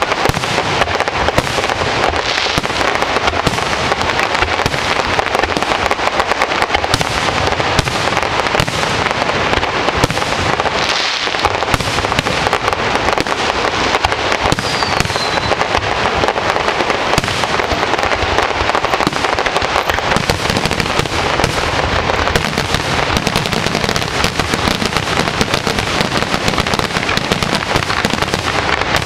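Aerial fireworks shells bursting in a dense, unbroken barrage of rapid bangs, with a short falling whistle about halfway through.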